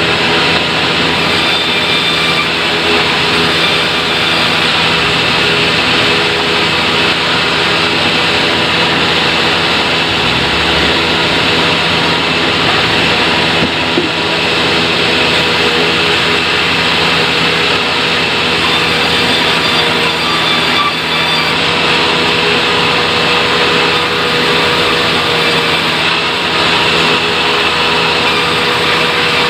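Sawmill machinery running steadily while sawing acacia wood: a constant loud mechanical drone with steady tones, one of which shifts slightly about twenty seconds in.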